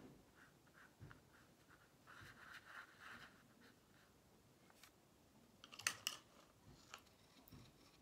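Faint scratching and rubbing of a thin paintbrush working colour onto watercolour paper, with a brief cluster of sharp clicks about six seconds in.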